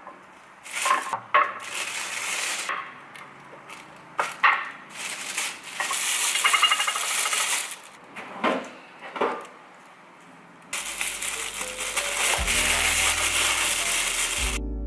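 A thin plastic bag rustling and crinkling as it is handled, with hard frozen banana chunks clacking against each other and a ceramic tray as they are dropped in, in several short bursts. A longer steady rustle of the bag comes near the end.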